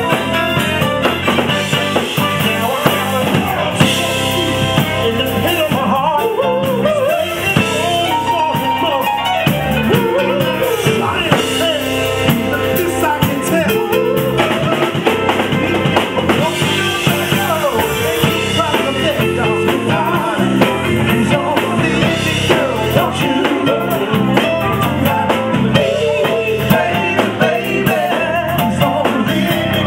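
Live soul band playing: electric guitar and drum kit, with singers on microphones.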